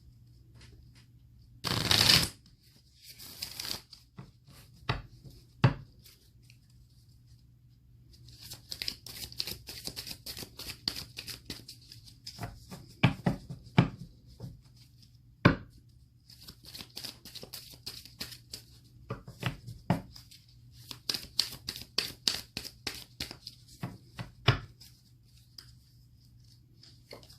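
A deck of oracle cards being shuffled by hand: a short loud riffle about two seconds in, then long runs of rapid card-edge clicks broken by a few louder taps.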